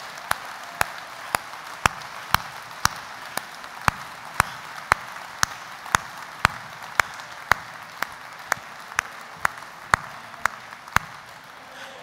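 Steady hand-clapping, about two sharp, loud claps a second close to the microphone, over a background haze of audience applause; the claps stop about a second before the end.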